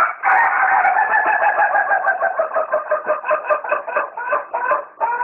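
Rooster crowing one very long crow of about five seconds, which turns into a rapid pulsing warble in its second half.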